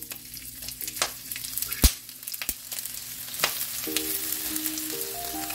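Sliced onion sizzling in hot vegetable oil in a nonstick wok, the hiss building as the onion goes in and is stirred with a silicone spatula. Scattered clicks and one sharp knock about two seconds in.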